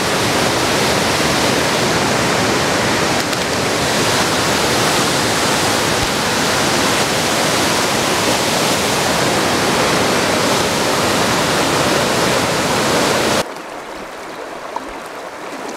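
Steady loud rushing noise with no gusts or rhythm, cutting off abruptly about thirteen seconds in.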